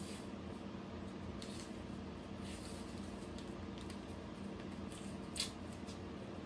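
Small handling sounds at a workbench: faint ticks and light scrapes from tools and parts being handled, with one sharper click about five and a half seconds in, over a steady low hum.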